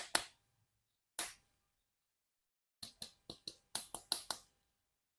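Sharp clicks and taps from plastic toys being handled: two near the start, one about a second in, then a quick run of about eight clicks in the second half.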